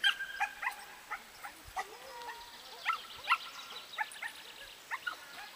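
A dog giving short, high-pitched yips and barks, several of them at irregular intervals, the loudest near the start and about three seconds in.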